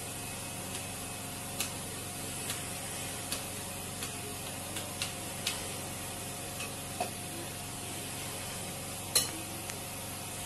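A spoon stirring milk in a bowl, clinking against the bowl in a dozen or so light, irregular clicks, one louder clink about nine seconds in, over a steady background hiss.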